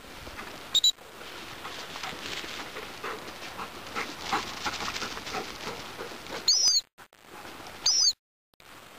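Gundog whistle blown in short pips: a quick double pip about a second in, then two single pips about a second and a half apart near the end. Each pip is the turn signal that calls a hunting Labrador back in when it reaches the furthest point the handler wants it to hunt.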